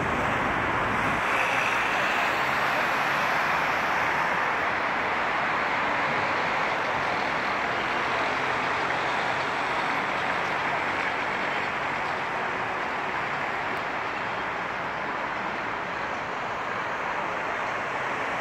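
Steady road-traffic noise from a busy multi-lane highway: a continuous wash of tyres and engines from passing cars, vans, trucks and buses, with no single vehicle standing out.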